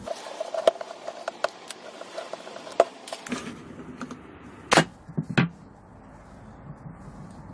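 Light clicks and taps of tools and metal parts being handled during disassembly, followed about five seconds in by two short, loud hissing bursts.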